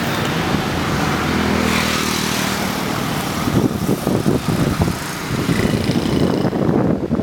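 City street traffic with motorbikes and cars going by. An engine hum holds steady through the first half, then gives way to an uneven low rumble.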